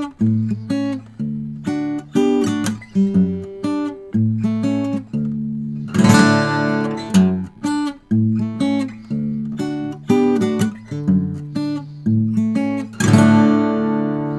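Acoustic steel-string guitar played fingerstyle: a picked melody over steady bass notes, with a louder full strummed chord about six seconds in and again near the end.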